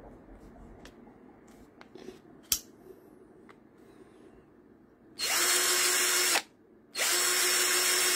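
A few light clicks as the torque-setting collar of a jar owl 21V cordless drill is turned, then the drill's motor runs free, with no load and a bit in the chuck, in two short trigger pulls of just over a second each at a steady speed, starting and stopping abruptly.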